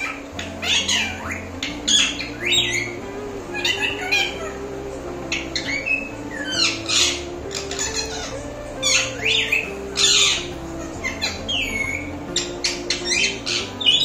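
Rose-ringed parakeet giving a string of short, sharp screeching squawks, repeated over and over. Soft background music with a slow stepping melody plays beneath.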